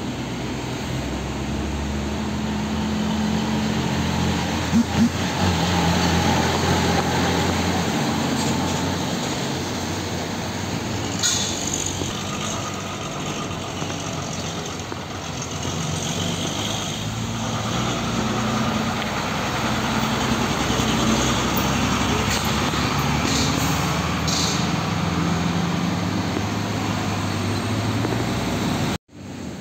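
Heavy diesel trucks passing one after another in road traffic, their engines running low and steady over tyre noise. Two sharp knocks come about five seconds in, and short air-brake hisses sound about halfway through and again later.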